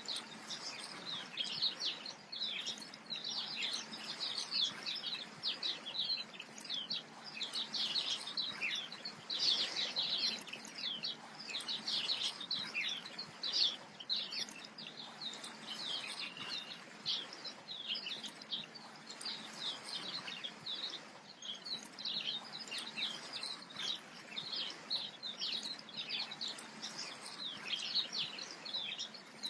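Small birds chirping, a dense, continuous chorus of short high chirps several times a second over a faint steady hiss.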